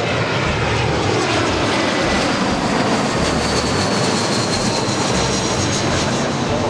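Airliner's engines running close by: a loud, steady rush of engine noise, with a faint high whine joining about three seconds in.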